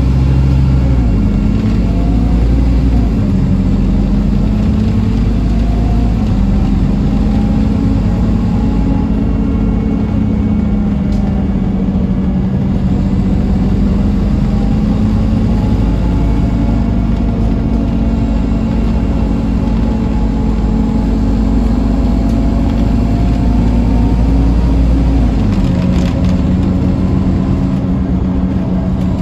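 Scania N230UD OmniCity double-decker bus on the move, heard inside the lower deck: the rear-mounted five-cylinder diesel drones under a steady road rumble, its pitch rising and falling as the bus speeds up and eases off. The deepest rumble drops away near the end.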